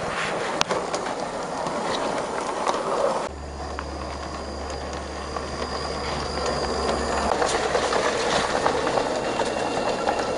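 Scratchbuilt large-scale garden-railway railmotor running along the track, with scattered clicks from its wheels on the rails. About three seconds in, a steady low hum comes in.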